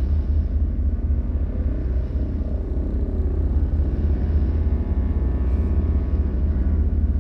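Dark horror ambience: a steady, deep rumbling drone with faint sustained tones layered above it.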